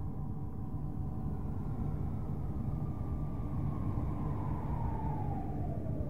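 NASA "space sound" of Saturn's rings, spacecraft data made audible: a steady low rumbling drone with faint held tones. From about halfway through, a whistling tone slowly falls in pitch.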